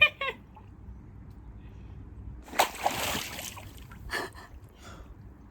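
Water splashing and sloshing, with one louder splash about two and a half seconds in that lasts about a second.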